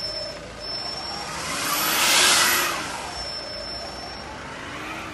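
Heavy cargo truck engines running on a muddy road, their note rising and falling gently. A loud rushing noise swells to a peak about two seconds in and fades.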